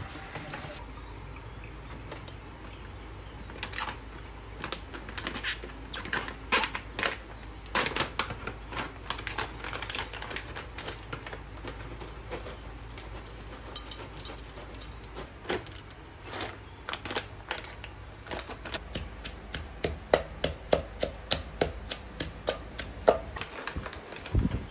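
Wooden pestle pounding basil into pesto in a clay mortar: scattered knocks at first, then steady thuds at about three a second near the end.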